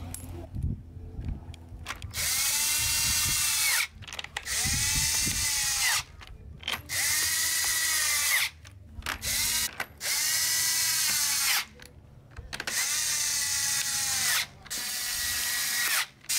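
Cordless drill-driver spinning screws in a plastic Jeep grille frame, in about six short runs of a second or two each that spin up and wind down. The first run starts about two seconds in, after a few light handling knocks.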